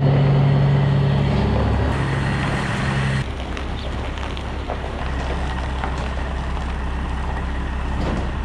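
A semi truck's diesel engine running as the truck backs a cattle trailer around. A louder steady hum over the engine noise stops abruptly about three seconds in, leaving a low, even rumble.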